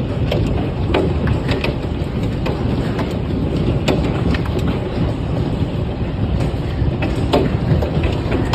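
Hailstorm: hailstones falling and striking hard surfaces, a loud, dense, steady noise broken by many sharp clicks and knocks from individual stones.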